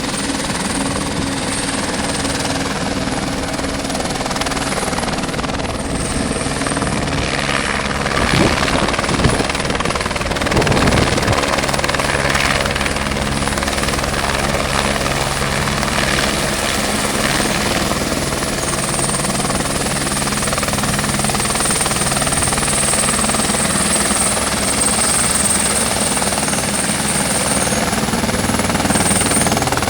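Construction helicopter flying close by: a steady fast rotor beat with a hum of engine tones, a little louder about eight to eleven seconds in.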